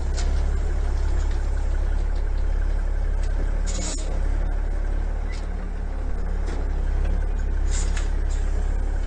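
Heavy diesel dump truck engine running steadily, a deep constant rumble, with a couple of short hissing bursts a few seconds apart.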